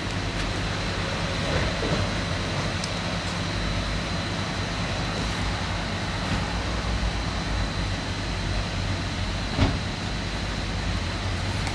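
An engine running steadily at an even speed, with a thin steady high whine over it and a single sharp click near the end.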